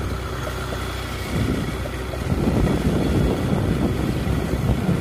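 A vehicle on the move, its engine and road noise a steady low rumble, with wind buffeting the microphone.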